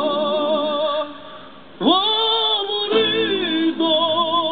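Singing in long held notes with wide vibrato, dipping just after a second in, then swooping up into a new held note and carrying on.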